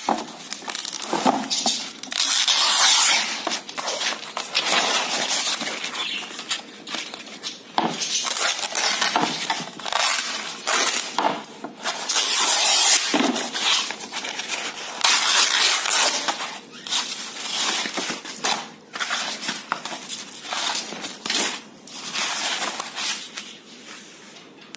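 Painted canvas being ripped apart by hand in several long tears, with bangles on the wrist clinking and rattling in between.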